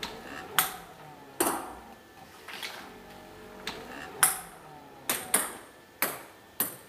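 Sharp, hard clicks of ping pong balls being struck by a stepper-motor-driven hitting arm and bouncing on the tabletop, about nine in all at uneven spacing, a few in quick pairs.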